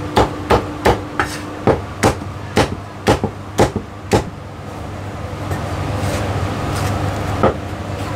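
Meat cleaver chopping roast goose on a wooden chopping block: a run of sharp chops, about two a second, that stops about four seconds in. A steady low hum follows, with one more knock near the end.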